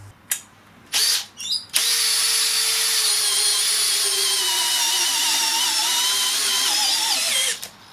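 Makita 40V HP001G cordless hammer drill turning an earth auger bit into the ground. It gives a couple of short trigger bursts about a second in, then runs steadily for about six seconds, its whine sagging slightly in pitch under the load, and winds down near the end.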